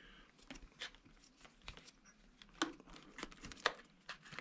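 Light clicks and rustling of plastic electrical connectors and wiring being handled as a motorcycle wiring plug is pushed back together, with a few sharper clicks about two and a half and three and a half seconds in.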